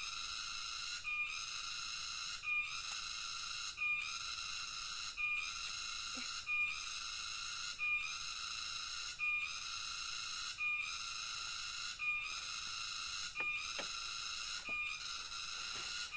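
A steady, high-pitched chorus of night insects that pulses in a regular rhythm, breaking off briefly about every second and a half. A few faint knocks come near the middle and toward the end.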